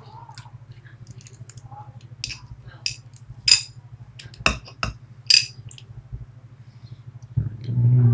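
Small metal clicks and clinks of lock parts being handled as a picked Medeco Biaxial cylinder is taken apart: about half a dozen sharp taps, a second or less apart, over a steady low electrical hum. Near the end comes a short, louder low hum-like sound.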